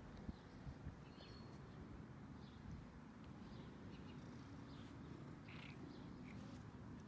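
Faint outdoor background: a steady low rumble, with a couple of soft clicks just after the start and a few brief high chirps.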